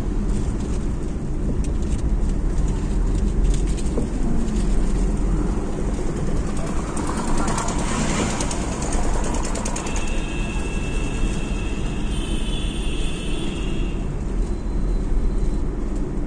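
Cabin noise of a Maruti Swift Dzire driving on the road, a steady low rumble of engine and tyres. From about ten seconds in, a high steady tone sounds for roughly four seconds.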